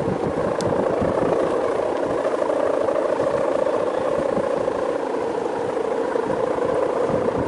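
A steady, loud drone from a kite's bowed hummer (guangan) sounding in strong wind, over rough wind noise buffeting the microphone.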